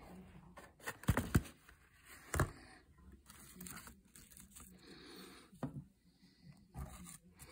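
Quiet handling sounds of objects being moved around in a box: a few light knocks and clicks, with faint rustling.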